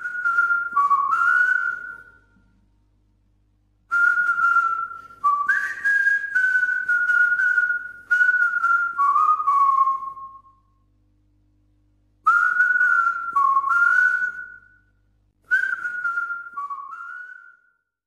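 A person whistling a short tune in four phrases with brief pauses between them, the pitch stepping up and down.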